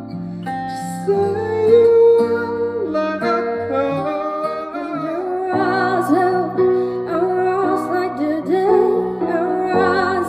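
Live acoustic guitar playing under singing. About halfway through the medley moves into a new song, and a woman's voice takes the melody over the guitar.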